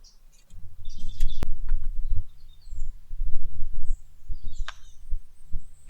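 Hands working a chainsaw's chain onto its guide bar: rumbling handling noise with sharp metallic clicks and knocks. Birds chirp faintly in the background.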